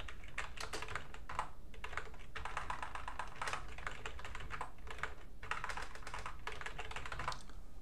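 Fast typing on a computer keyboard: quick runs of key clicks with short pauses between them, stopping shortly before the end.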